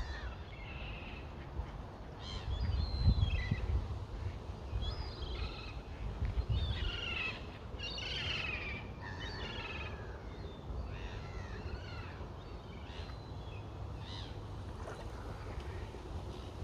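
Birds calling in a series of short chirps and falling whistled sweeps, busiest in the first half and sparser later. A low rumble runs underneath and swells twice.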